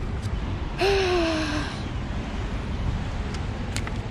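A steady low rumble of wind and water, with one short, falling groan-like vocal sound from a person about a second in, and a few faint clicks.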